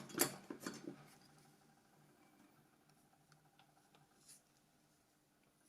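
A few faint clicks and taps from small phone parts being handled in the first second, then near silence with a faint steady hum.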